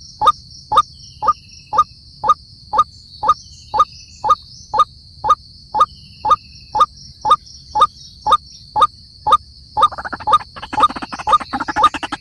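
White-breasted waterhen calling a long, monotonous series of short 'kook' notes, about two a second, each the same pitch, over a steady high insect drone. Near the end a denser, faster pulsing sound joins in.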